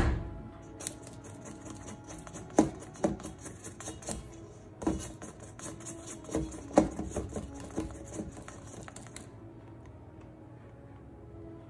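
A plastic bowl scraper scraping and tapping against a stainless steel mixing bowl while sourdough dough is worked by hand: a run of irregular clicks and scrapes that stops about nine seconds in.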